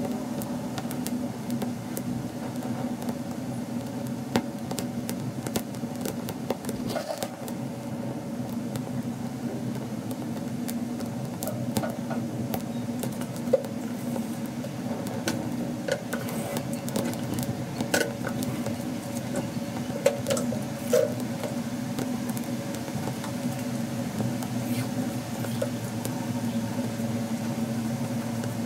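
A steady low mechanical hum, with scattered small crackles and ticks from the charred, smouldering grapes as their embers die out.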